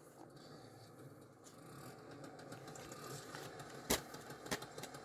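Plastic multi-disc DVD case being handled, with a sharp click about four seconds in and a smaller click half a second later, over a faint steady background hum.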